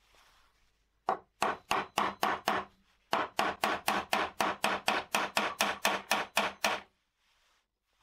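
Repeated quick taps on a brass rifle cartridge case seated on a steel priming tool, pressing a primer into the case head. There are about two dozen taps, in a short run and then a longer one after a brief pause, about four or five a second, with a light metallic ring.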